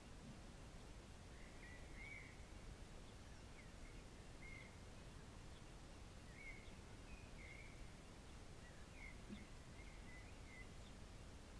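Faint outdoor ambience: a bird chirping repeatedly in short calls, about one a second, over a low steady background rumble.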